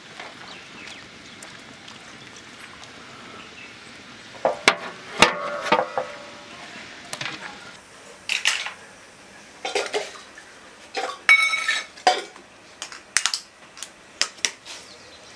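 A low, steady sizzle-like hiss of stirring in a large aluminium cooking pot, then from a few seconds in a run of sharp metallic clinks and taps with brief ringing, from eggs and utensils knocked against steel pots and bowls.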